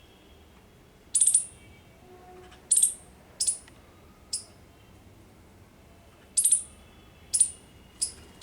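A small bird giving short, high-pitched chirps, about seven of them at irregular intervals.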